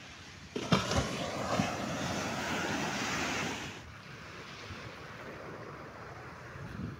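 Small waves washing onto a sandy beach, with wind on the microphone. A couple of knocks about a second in; the loud rushing noise then drops off suddenly a little past halfway, leaving a quieter steady wash.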